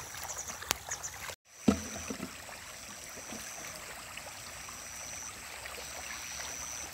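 Light splashing and lapping of water on a fish pond's surface. The sound cuts out briefly about a second and a half in, followed by a single thump. After that comes a steady wash with a thin high-pitched tone repeating about every second and a half.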